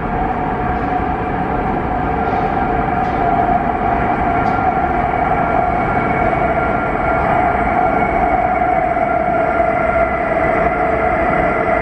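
Metro train running, heard across the underground platform: a steady electric whine over a constant rumble.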